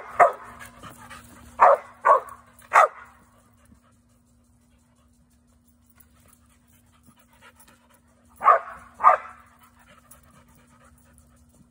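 Young Rottweiler barking: five short barks in the first three seconds, then two more about eight and a half seconds in.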